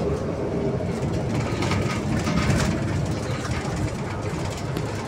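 Cabin ride noise of a moving BKM 321 trolleybus: a steady low rumble of tyres and body, with a spell of rattling and clatter about two seconds in.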